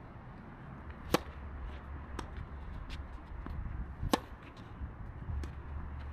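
Tennis racquets hitting a ball in a rally: a sharp serve about a second in, fainter shots and bounces from across the court, then another loud hit about four seconds in. A low steady rumble runs underneath.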